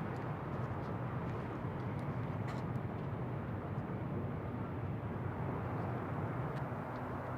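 Steady outdoor background noise with a low rumble, like distant traffic, and a few faint ticks.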